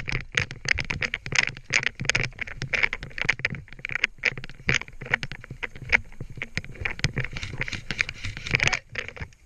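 Airsoft guns firing: a dense, irregular run of sharp clicks and short rapid strings of shots, with a few dull thuds among them.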